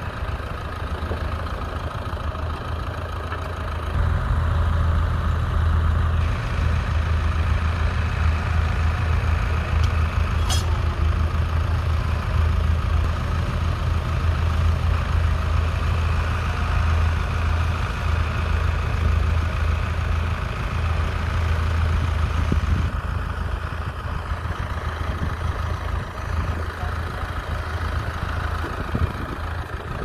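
Massey Ferguson 4235 tractor's four-cylinder diesel engine running steadily under load while it pulls a two-furrow reversible plough through the soil. It grows louder about four seconds in and falls back in the last several seconds as the tractor draws away.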